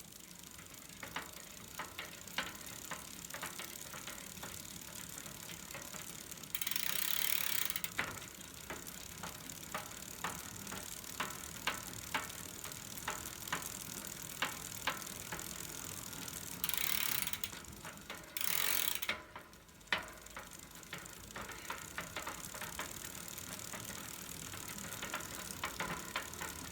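Bicycle rear wheel turning with a ratchet-like clicking and sharper knocks at uneven spacing: the unexplained knock in the rear wheel that the owner is trying to trace. A loud hiss breaks in three times.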